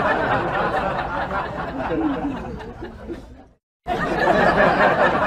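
Several people's voices chattering and laughing together. They fade out, stop for a moment about three and a half seconds in, then start again at full level.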